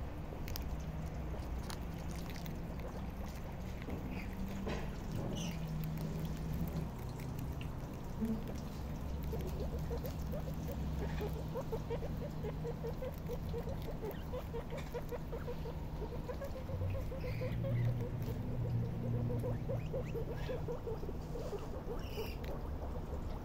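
Young guinea pigs munching cabbage and cauliflower leaves: a fast, steady run of small crunching chews with leaves rustling, over a low steady hum.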